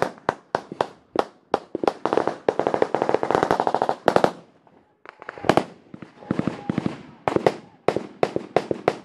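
Gunfire in a firefight: rapid single rifle shots, then a sustained automatic burst for about two seconds. After a short break a little past four seconds in, more automatic fire and single shots follow.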